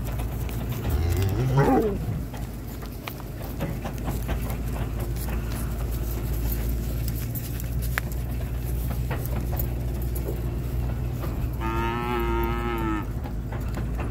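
Cattle mooing twice: a short call about a second in that sweeps up and falls back in pitch, and a longer, steadier, higher-pitched moo near the end. A low steady rumble runs underneath.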